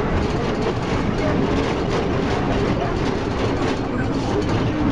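Zonda YCK6128HC city bus running steadily, its Cummins ISB diesel engine and road noise making an even rumble.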